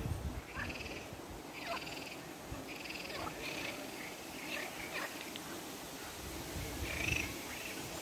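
Frogs croaking from the pond, several short rattling croaks at intervals.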